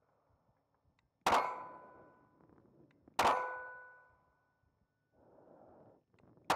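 Three shots from a Ruger LCP Max .380 ACP pocket pistol, spaced about two to three seconds apart, with the last right at the end. Each shot is followed at once by a hit steel plate target ringing and fading over about a second.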